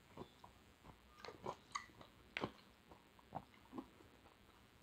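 Faint chewing of a mouthful of diced fruit salad, with a scattering of small, soft clicks from the mouth and spoon.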